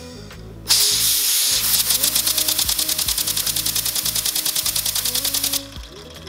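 3D-printed single-cylinder compressed-air engine running on 60 psi: a hiss of air comes on about a second in, then turns into rapid, even exhaust puffs, about ten a second, as the flywheel spins. The air cuts off suddenly near the end.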